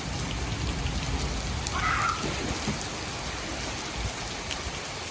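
Heavy rain pouring steadily, with a low rumble underneath and a brief higher-pitched sound about two seconds in.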